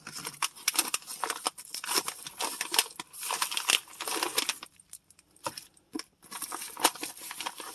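An envelope being slit and torn open, with paper tearing and the packaging crinkling in irregular bursts and small clicks.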